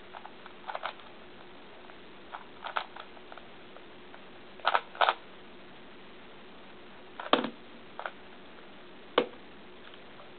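Sheng En Type F-II 3x3x3 puzzle cube being turned by hand: scattered plastic clacks of its layers, one or two at a time with pauses between, the loudest a quick pair about halfway through. A faint steady hum runs underneath.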